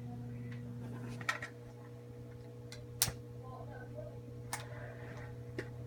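A low steady hum with a few faint, scattered clicks and taps, the sharpest about halfway through.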